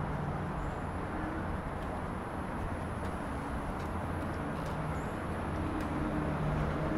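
Steady outdoor background rumble and hiss with a low hum, and a faint thin high tone held above it.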